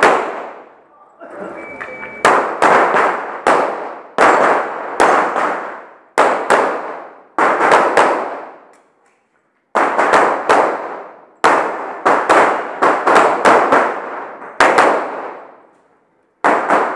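Handgun shots fired in fast strings, often two or three close together, each ringing out with a fading echo under the range's metal roof. The shooting breaks off briefly about a second in, around nine seconds in and near the end, then resumes.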